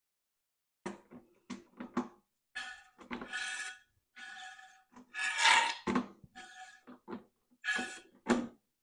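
Hand-operated fluid extraction pump being worked in a lawnmower's oil fill tube. About a second in come a few quick clicks, then a run of short sucking strokes, each with a faint whistling tone, as the last of the engine oil and air is drawn up the tube.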